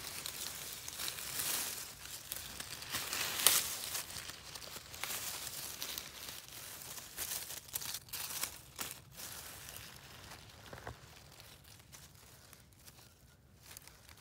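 Dry fallen beech leaves rustling and crinkling as a hand brushes them aside around a porcini mushroom, in irregular crackles with one sharp one about three and a half seconds in. The crackling dies down over the last few seconds.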